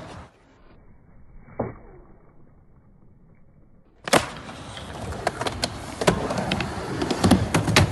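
Skateboard sounds: a single clack of the board about a second and a half in, then from about four seconds in the steady rumble of skateboard wheels rolling on a ramp, broken by repeated sharp clacks of the board.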